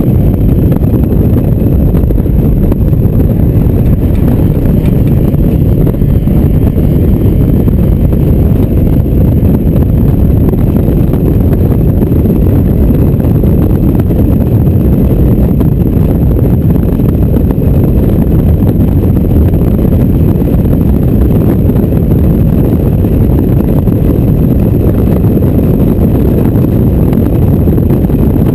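Loud, steady wind buffeting the microphone in the open cockpit of a Mazda MX-5 roadster driven at speed, with the car's engine and road noise beneath it.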